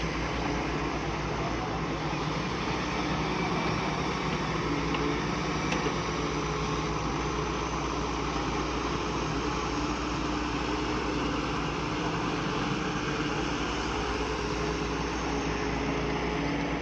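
Heavy earthmoving machine's diesel engine running steadily under work, a continuous deep hum whose pitch shifts only slightly.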